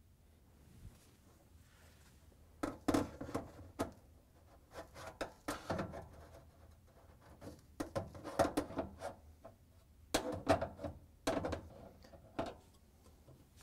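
Flathead screwdriver scraping and knocking in the plastic rail of a dryer's lint filter housing, clearing out packed lint. It comes in several short bouts of scrapes and taps starting about two and a half seconds in.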